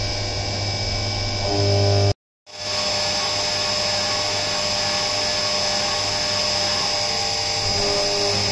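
CNC vertical mill spindle and end mill cutting a pocket in a solid aluminium billet under flood coolant, a steady machining whine with a low hum beneath. The sound drops out for a moment about two seconds in. As the pocket deepens and the walls thin, the cut starts to sound a little hollow.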